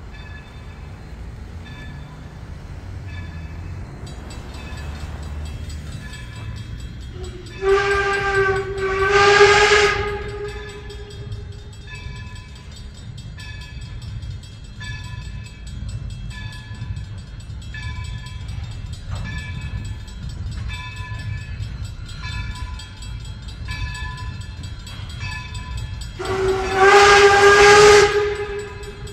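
Steam whistle of Baldwin 0-6-0 switcher No. 26 sounding two blasts about eight seconds in and one longer blast near the end, each a chord of several tones that bends up slightly as it starts. Between the blasts the locomotive's bell rings steadily, about two strokes a second, over the low rumble of the engine working.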